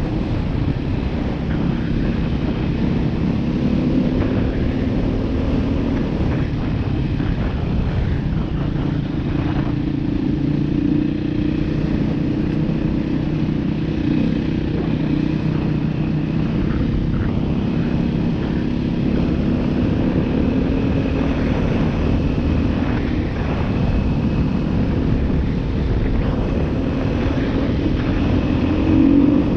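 Beta 500 RR-S dual-sport motorcycle's single-cylinder four-stroke engine running at a steady trail-riding pace, with a rise in revs near the end.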